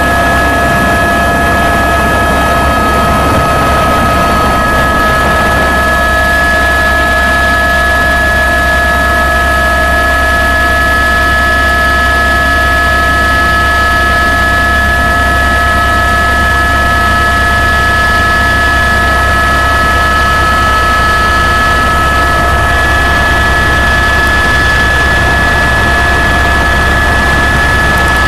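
Helicopter running steadily and loudly: a constant low drone with several steady high whining tones over it.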